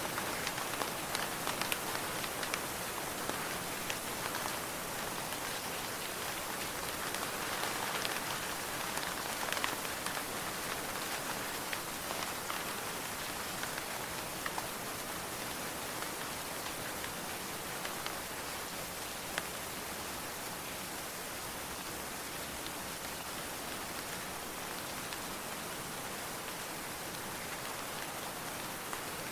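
Steady rain falling, an even hiss with many individual drops ticking close by, the drop ticks thicker in the first half and thinning out towards the end.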